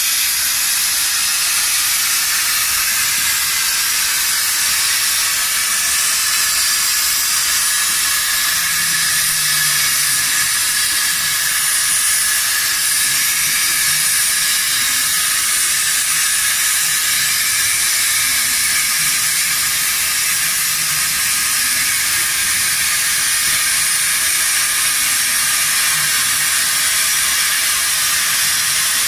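WS-P1530 CNC plasma cutting machine with a 200 A plasma power supply cutting metal plate: the torch's plasma arc and air jet make a steady, loud hiss. A faint low hum comes and goes underneath.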